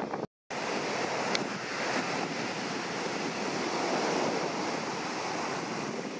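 Large ocean waves breaking: a steady rush of surf with some wind on the microphone. The sound cuts out completely for a split second just after the start.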